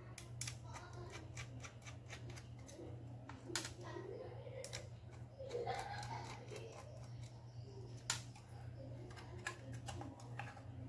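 Irregular small clicks and taps of laptop parts and tools being handled during a repair, the sharpest about three and a half and eight seconds in, over a steady low hum.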